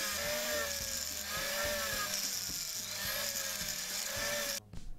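Rotary tool spinning a satin finishing wheel against a solid silver ring, a steady high whir and hiss with a whine that rises and falls in pitch as the wheel is pressed and eased off. It cuts off suddenly near the end.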